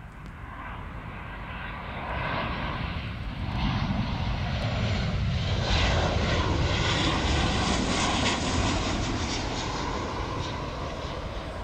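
Boeing 737-800's CFM56-7B turbofan engines on landing approach, the jet noise growing louder as the airliner passes close by, loudest midway, then fading near the end.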